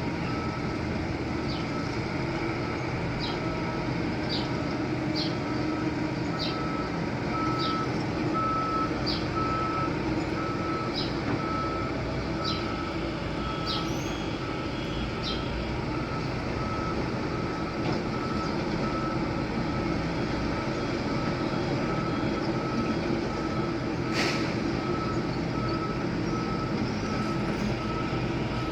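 Heavy construction machine's engine running steadily while its reversing alarm beeps at an even pace, about two beeps a second. Short high squeaks come about once a second in the first half, and a single sharp crack sounds late on.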